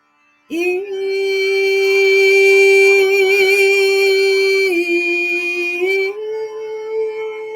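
A woman singing a wordless soul song in long held notes. After a brief silence she holds one steady note for about four seconds, steps slightly lower, then rises to a higher held note near the end.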